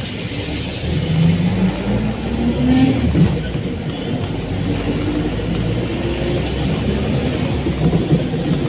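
Bus engine running as heard from inside the moving bus, with road noise. Its note climbs over the first few seconds, falls back about three seconds in, then runs steady.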